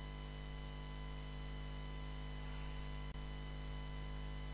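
Steady electrical mains hum and buzz in the recording, with no other sound except a faint click about three seconds in.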